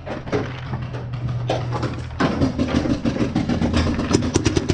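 Paintball markers firing: sharp pops that come thicker from about halfway and turn into a fast run of shots near the end, over a steady low hum.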